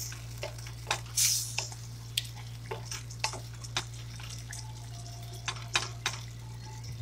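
A wooden spatula stirs chicken pieces through a simmering, cornstarch-thickened sauce in a stainless steel pan, with irregular knocks and scrapes against the pan. A steady low hum runs underneath.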